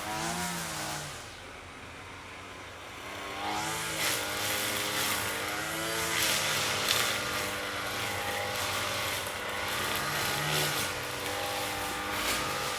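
Lawn mower engine running, its pitch dipping and rising again several times. It is quieter for the first few seconds, then louder and hissier from a few seconds in.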